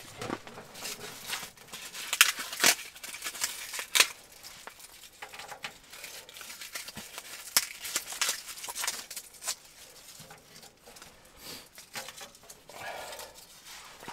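Dry birch bark being torn and peeled by hand for fire tinder: irregular crackling tears, rustles and a few sharp snaps.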